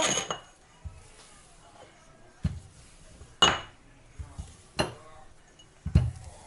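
Kitchen utensils and dishes clinking and knocking on a worktop: about six separate knocks and clinks spread a second or so apart. The loudest comes about three and a half seconds in, with a short ringing.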